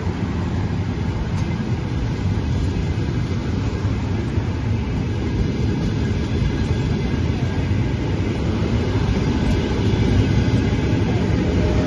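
Trenitalia Frecciarossa high-speed electric train moving past along the platform, a steady rumble of wheels on the rails that slowly grows louder. A steady whine comes in near the end.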